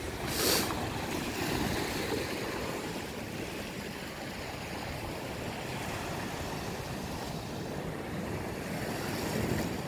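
Sea waves washing against a rocky shore: a steady rushing surf noise, with a brief louder rush about half a second in.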